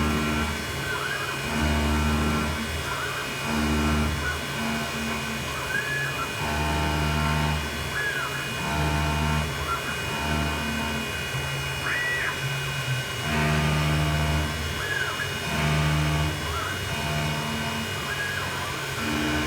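Grizzly G0704 milling machine converted to CNC running a toolpath. The spindle runs steadily while a deep hum from the axis drives starts and stops every second or two as the table moves back and forth, with short rising and falling whines between moves. The machine sounds nice and tight.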